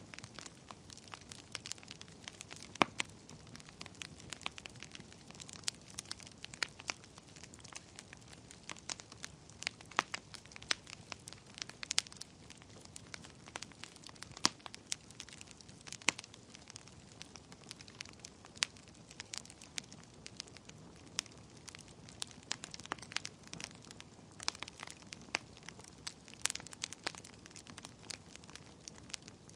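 Wood fire burning in a fireplace, with irregular sharp crackles and pops over a faint steady hiss.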